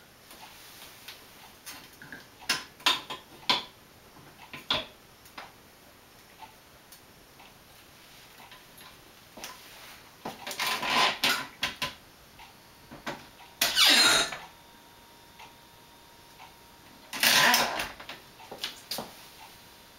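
Red floor-standing wine corker corking a bottle: light clicks and clinks of glass and metal as the bottle is set in place, then rasping, squeaky strokes as the lever is pulled down and the cork is squeezed and driven into the neck, three times, the loudest near the middle and about two seconds from the end.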